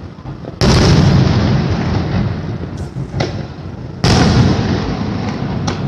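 Aerial firework shells bursting: two loud bangs, about half a second and four seconds in, each trailing off over a couple of seconds, with a few smaller sharp cracks between and near the end.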